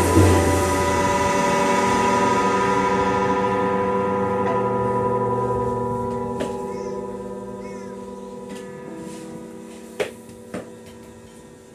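Rock band's final chord on electric guitar and bass, struck together with a last drum and cymbal hit right at the start, then left ringing and slowly dying away over several seconds. A couple of sharp knocks near the end.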